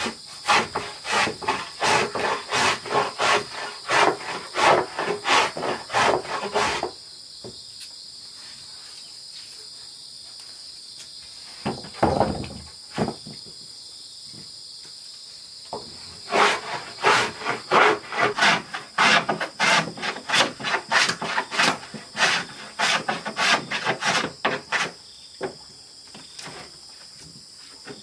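Hand plane shaving a wooden board in quick push strokes, about two a second. The planing stops about seven seconds in and starts again around sixteen seconds, running until about twenty-five seconds. A steady high-pitched drone of insects runs underneath.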